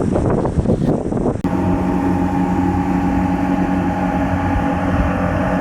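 Rough wind and water noise, cut off about a second and a half in by a steady engine drone, an even low hum with no change in pitch.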